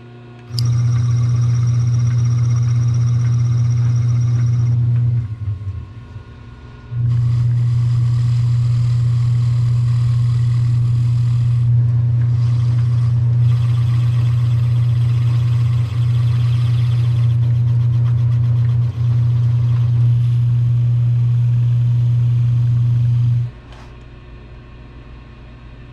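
An electric motor on shop machinery runs with a loud, steady hum and a hissing, grinding layer above it. It cuts out about five seconds in, starts again a couple of seconds later with two brief dips, and stops near the end.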